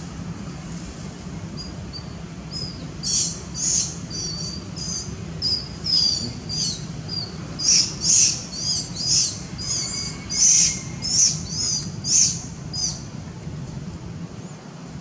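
A bird calling nearby: a run of short, high chirps, about two a second, that start a couple of seconds in and stop near the end, over a steady low background hum.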